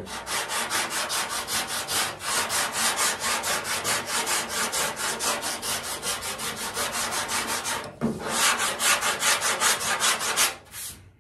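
A long sanding block with 80-grit sandpaper scrubbing back and forth over a primed steel car fender in quick, even strokes, with brief pauses about two seconds in and near eight seconds. It stops just before the end. The block sanding cuts the primer to show the low spots along a damaged body line.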